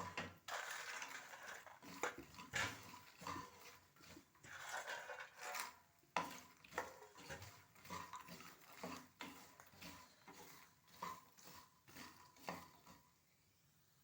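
Makhana (lotus seeds) being stirred in a kadai with a spoon, with irregular scraping strokes and the dry rattle of the seeds against the metal pan. The rattle is the sign that the seeds are roasting crisp. The stirring stops about a second before the end.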